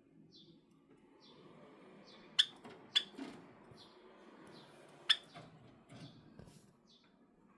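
Java sparrow sneezing a few times: small, sharp sneezes, the loudest about two and a half seconds in and others at about three and five seconds. A short high chirp repeats about once a second in the background.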